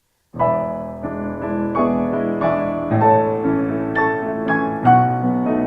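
Kawai piano being played: a flowing passage of melody over chords that starts suddenly about a third of a second in.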